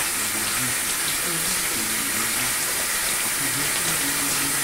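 A steady rushing hiss that holds an even level throughout, with faint music playing underneath.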